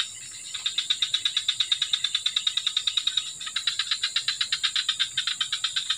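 A calling animal's rapid, even pulsing, about ten pulses a second, over a steady high hum. The pulsing drops out briefly at the start and again a little past the middle.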